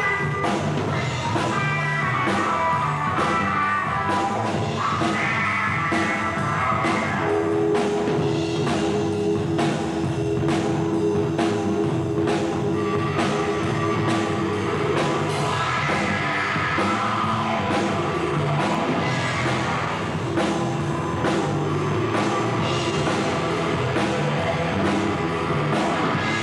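Live rock band playing: electric guitar over a drum kit keeping a steady beat, with a long held note through the middle.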